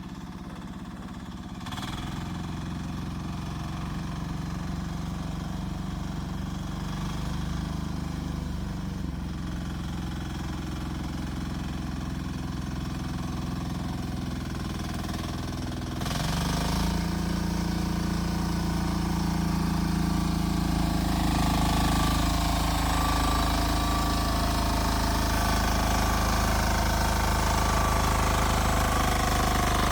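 Rippa R10 mini excavator's engine running steadily, getting louder and fuller about sixteen seconds in.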